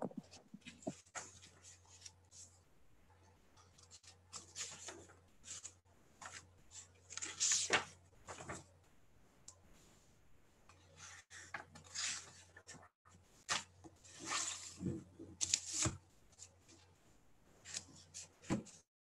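Faint, irregular rustling and scraping handling noises, a soft scratch every second or two, over a low hum that comes and goes.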